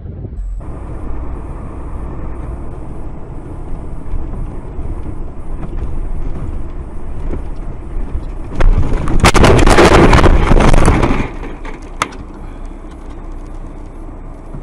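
Motor vehicle running with steady road and engine rumble. About nine seconds in, a loud rushing noise lasts roughly two and a half seconds, followed by a single sharp knock.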